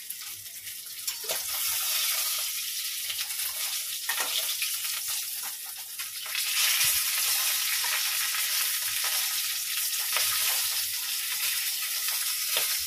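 Fish heads frying in hot oil in a steel kadai: a steady sizzle full of pops and crackles as the oil spatters. The sizzle grows louder about six seconds in.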